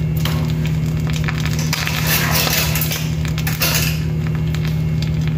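Steady low hum of a washing machine running a wash cycle. A rushing noise swells from about two seconds in to about four, with scattered light clicks.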